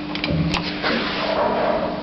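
Doppler passenger lift standing with its doors open: a steady hum with a few sharp clicks, the loudest about half a second in.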